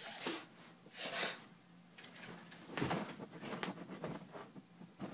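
A person breathing out hard in two short bursts while swinging at a bug, then a thud about three seconds in, followed by lighter knocks and rustling.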